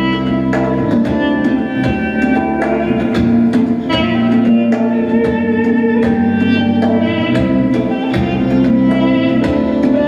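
Armenian duduk playing a held, sustained melody over a steady beat on congas and held keyboard chords and bass.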